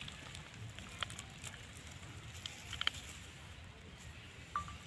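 Quiet background with a few faint clicks and rustles, and one short high squeak near the end.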